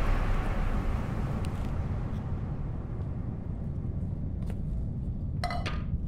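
Steady low background rumble, with a brief clink near the end.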